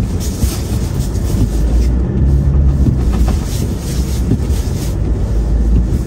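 A 4x4's engine running and its tyres rolling through deep snow, heard from inside the cab: a steady low rumble with irregular crunching crackles.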